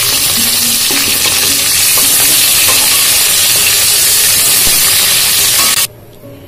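Cauliflower florets sizzling loudly in hot oil in a kadai, with a few light scrapes of a metal spatula as the fried florets are scooped out. The sizzle cuts off suddenly near the end.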